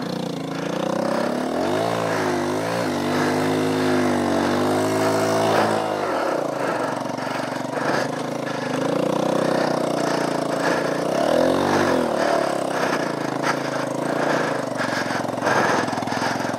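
Small single-cylinder dual-sport motorcycle engine revving hard under load on a steep trail climb, its pitch rising and falling several times as the revs surge and drop.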